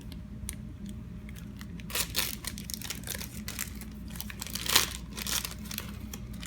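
Screen-protector packaging being opened and handled: irregular crinkling and rustling with a few sharper tearing crackles, loudest about two seconds in and again just before five seconds.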